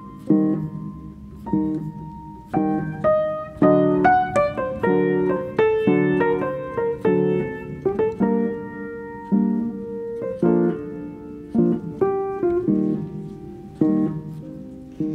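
Background piano music: a melody and chords of struck notes, each note fading after it is played.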